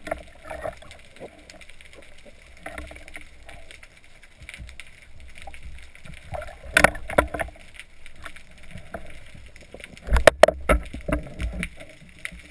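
Water sloshing and splashing heard muffled through a GoPro's waterproof housing at the sea surface, with scattered knocks. Near the end comes a loud cluster of splashes and knocks as the spearfisher ducks under to dive.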